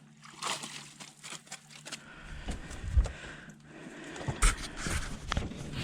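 Handling noise in a fishing boat: scattered scrapes and clicks with a couple of louder knocks, about three and four and a half seconds in, over a faint steady low hum.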